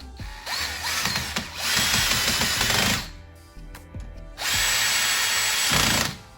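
Power drill fitted with a socket adapter running in two bursts, about two and a half seconds and then about one and a half seconds, driving bolts in to fasten a recliner sofa's back section.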